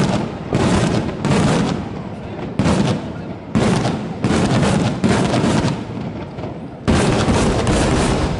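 Aerial fireworks shells bursting overhead: about ten loud booms in quick, uneven succession, each trailing off in a rumbling echo.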